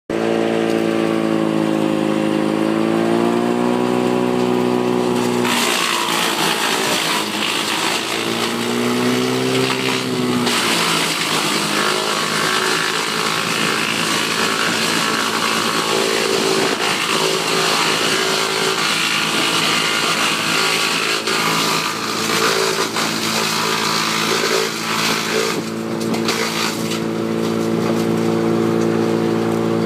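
PTO-driven WC-8 wood chipper running off a tractor's engine, which holds a steady note with two dips in pitch under load in the first ten seconds. A loud chipping noise of wood going through the chipper runs from about five seconds in until near the end.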